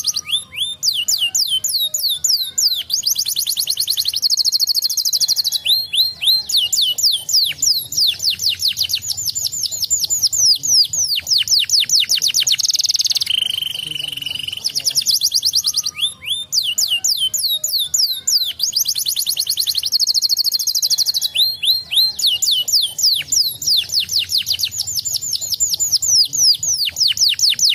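Domestic canary singing a long song of rapid trills: fast runs of short downward-sweeping notes alternating with steady, high buzzing rolls. The same roughly 13-second sequence of phrases plays twice.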